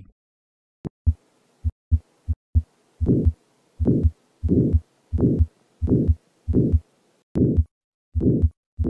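Heart sounds of a patient with aortic valve sclerosis, heard through a stethoscope. A few faint short thumps come first, then a regular heartbeat with a systolic murmur that peaks early in systole on each beat, the sign of thickened, calcified aortic valve leaflets.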